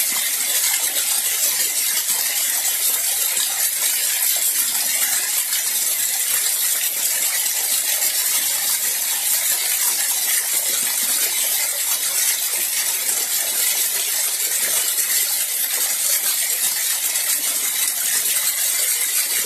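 Water from a natural mountain spring splashing steadily down a small rocky cascade, heard close up as a continuous, mostly high-pitched splatter.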